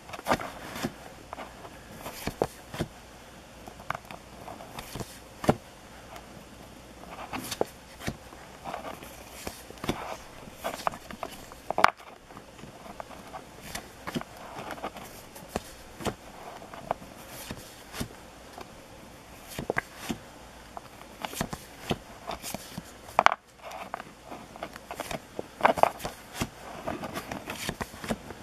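Paper stickers being flipped and slid off a stack by hand: irregular sharp paper flicks and taps over light rustling.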